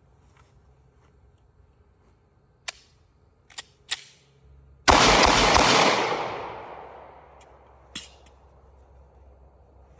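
Pistol fire: a very loud blast about five seconds in that holds for about a second and fades away over the next two, after three sharp clicks. One more click comes near the end.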